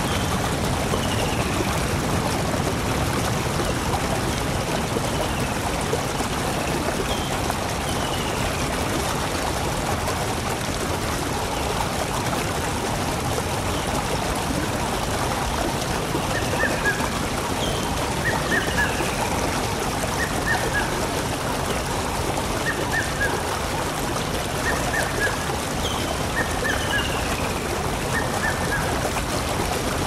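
Steady rush of flowing water, with birds calling over it: a few high, falling chirps throughout and, from about halfway, a short call repeated every couple of seconds.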